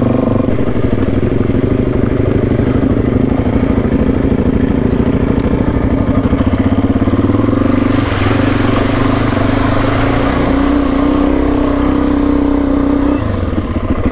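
Suzuki DR-Z400E single-cylinder four-stroke engine running steadily under way. A rushing hiss joins it about eight seconds in, the engine pitch rises about ten seconds in, and the revs drop near the end.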